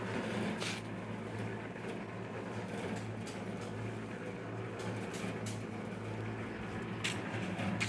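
A steady low mechanical hum, like a motor running, with a few short clicks or taps.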